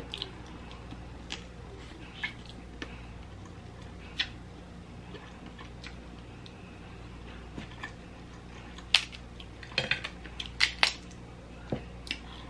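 Close-up eating sounds of a person chewing crab meat and seafood boil: scattered wet mouth clicks and lip smacks, with finger licking and handling of shells in the bowl. The clicks come more thickly about nine to eleven seconds in, over a steady low hum.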